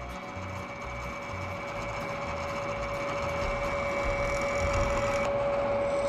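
Drill press running with a steady motor whine while a twist drill bores into a tin-plated copper bus bar, the cutting noise growing louder as the bit works into the metal.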